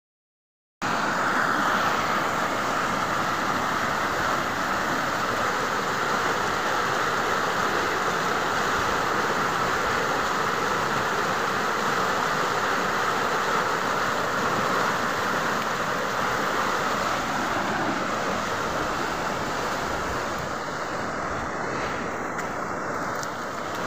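Muddy floodwater rushing in a swollen stream after heavy rain: a steady, unbroken rush of water that starts about a second in.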